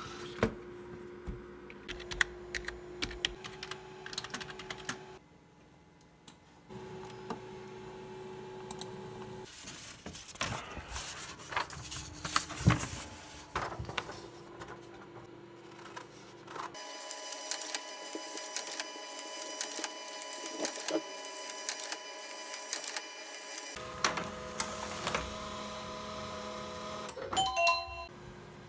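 Desk and paper-handling noises across several cuts: a computer keyboard being handled, printed sheets rustled and cut with scissors, and a Canon printer printing, with many sharp clicks and short steady machine tones.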